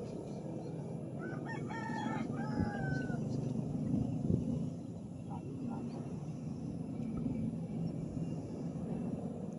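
A rooster crows once, starting about a second in: a few short notes and then a long, slightly falling final note. Under it runs a steady low rumble.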